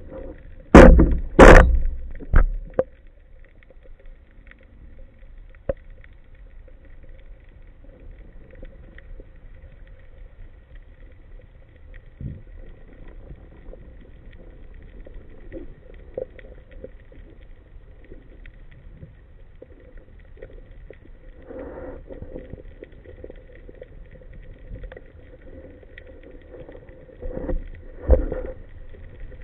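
Underwater sound on a diving camera: two loud rushes of water and bubbles about a second in. Then a quiet underwater hush with the faint steady hum of a boat's motor carried through the water, and a few softer rushes of water near the end.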